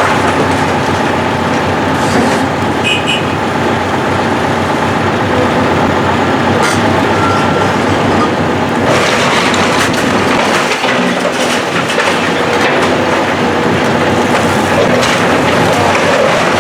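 Heavy demolition machinery tearing down a building: a steady engine rumble under continuous crunching and clattering of breaking debris, which grows harsher from about nine seconds in.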